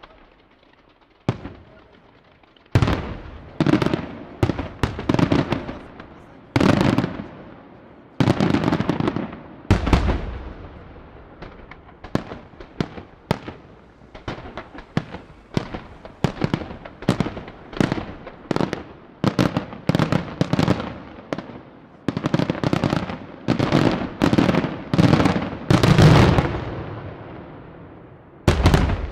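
Aerial fireworks display: a lone bang, then from about three seconds in a rapid, irregular barrage of shell bursts, each a sharp bang trailing off, with the heaviest volley near the end.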